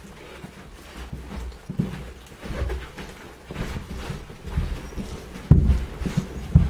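Nine-day-old Irish Setter puppies nursing from their mother, with irregular soft low thumps and rustling as bodies shift on the bedding. Two louder thumps come about five and a half seconds in and near the end.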